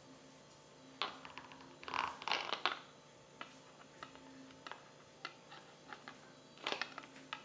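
Scattered clicks and knocks of things being handled in a kitchen, with a short burst of rustling and clattering about two seconds in and another near the end.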